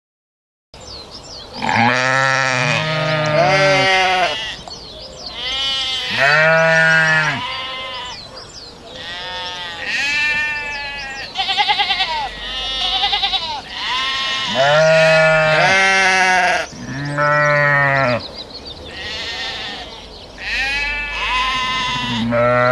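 Sheep bleating, one call after another at varied pitches, some low and some higher and quavering, starting a moment in.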